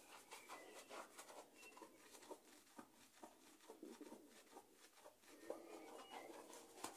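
Near silence in a small room, with faint scattered clicks and rustles.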